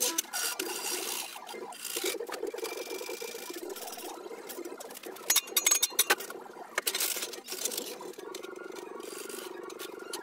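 Steel flat bar clanking and scraping against a steel bending jig as it is worked by hand, with a cluster of sharp metal knocks about five to seven seconds in, over a steady machine hum.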